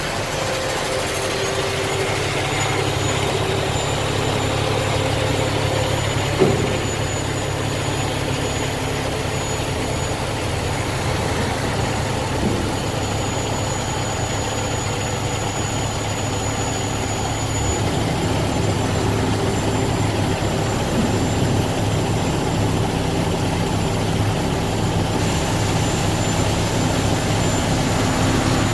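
Heavy-truck diesel engine running steadily while the tri-axle dump truck's raised dump box is lowered; the engine note shifts partway through. A single short knock comes about six seconds in.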